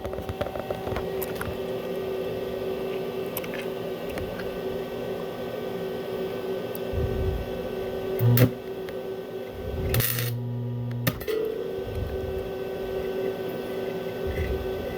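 Stick welding arc running steadily: a constant hiss with scattered crackles over a steady hum, broken by a short pause about ten seconds in.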